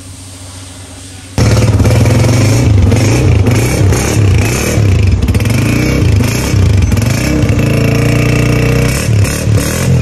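Honda CG125's single-cylinder four-stroke engine running loudly at the exhaust, with the throttle blipped up and down. It comes in abruptly about a second and a half in.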